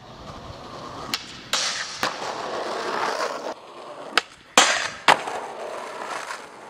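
Skateboard wheels rolling on concrete, broken by a series of sharp board cracks and impacts: three in the first two seconds and three more between about four and five seconds in, the last two the loudest. The rolling fades out toward the end.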